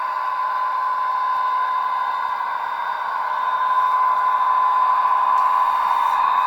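Bachmann GP35 model locomotive's WowSound decoder playing diesel engine running sound through its small onboard speaker: a steady, really loud hum with a strong single pitch, growing a little louder about halfway through.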